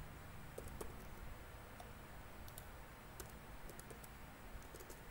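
Faint, irregular clicks of computer keyboard keys being typed, a few to several a second, over a low steady background hum.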